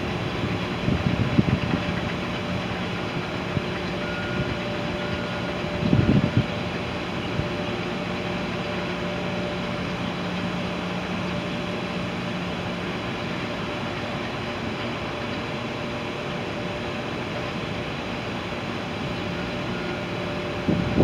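Steady mechanical hum with a constant low tone, and wind buffeting the microphone in brief gusts about one second and six seconds in.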